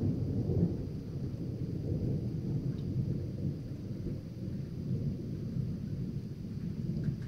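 Low, continuous rumble of thunder, a little stronger in the first second and carrying on without a break.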